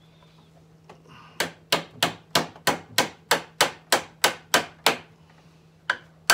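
Hammer driving a metal electrical staple into the end of a pine board. About a second in, a run of about a dozen quick, sharp taps, roughly three a second, then a short pause and two more taps near the end.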